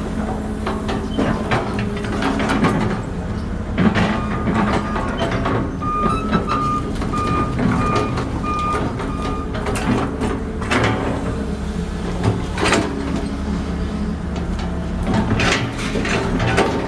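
Diesel construction-machine engine running steadily, with repeated clanks and knocks of working machinery. Partway through, a reversing alarm beeps several times at an even pace for a few seconds.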